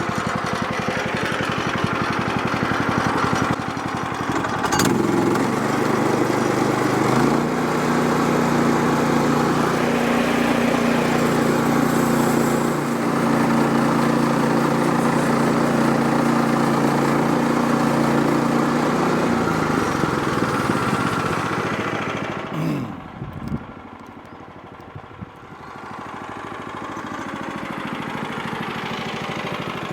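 Portable bandsaw mill's gas engine running for the first cut on a log. It revs up about five seconds in and holds steady while the band blade cuts, then drops back and goes much quieter about twenty-three seconds in before building again near the end.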